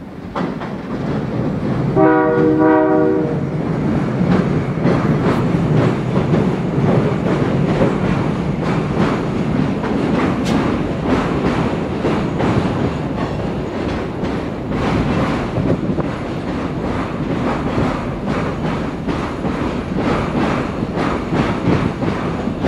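CN local freight train crossing a steel truss bridge: the locomotive's horn sounds briefly about two seconds in, then the locomotive and covered hopper cars rumble across the bridge with the wheels clicking steadily.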